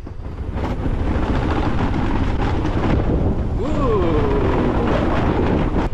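Wind buffeting the microphone over a motorbike's running engine while riding. Past halfway a man gives a long, falling "whoo".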